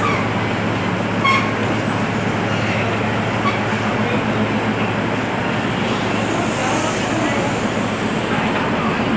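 Stainless-steel diesel railcar standing at the platform with its engine idling, a steady low hum under a constant noisy drone.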